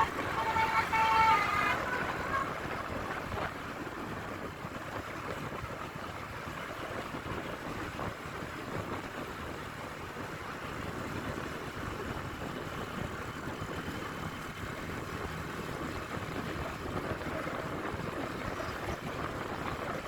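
A bus's multi-tone 'telolet' musical horn plays a quick run of notes, cutting off about two seconds in. After that there is steady road traffic noise with wind.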